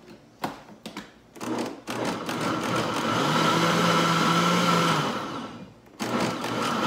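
Countertop blender given a short pulse to coarsely chop whole corn kernels in milk. A few knocks as the lid is pressed on, then the motor runs steadily for about four seconds and winds down. It starts again near the end.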